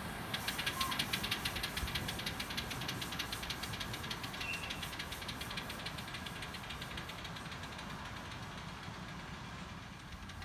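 7¼-inch gauge miniature passenger train running along the track, a rapid, even clicking over a low rumble that slowly fades as the train draws away.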